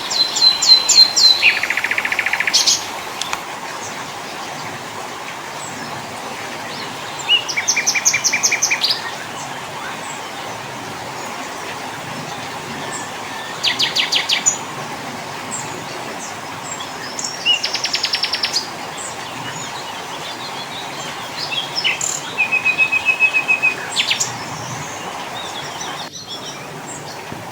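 Small songbirds singing five short bouts of rapid trills, each a second or two long, some stepping down in pitch partway through, over a steady background hiss.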